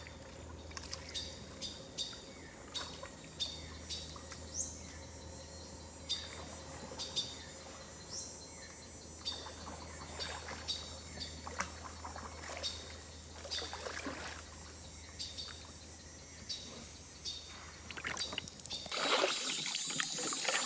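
Swamp ambience: scattered short bird chirps and clicks, a few rising, over a low steady hum. About two seconds before the end, a kayak paddle dips and splashes in the water.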